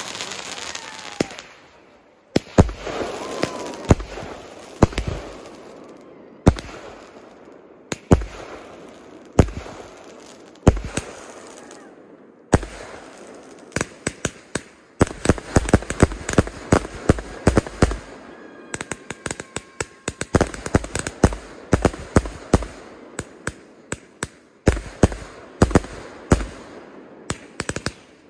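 Fireworks going off: a string of sharp bangs and booms at irregular spacing, with dense crackling volleys in the middle and near the end. A short whistle is heard about three seconds in.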